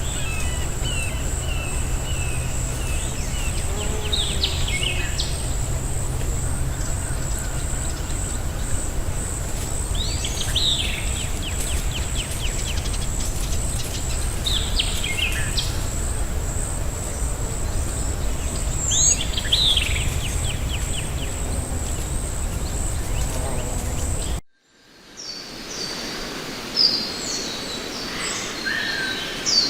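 Forest ambience: a steady, high, pulsing insect trill over a low rumble, with a bird repeating a short phrase of sweeping notes every four or five seconds. Near the end the sound cuts abruptly to a quieter scene with other birds chirping.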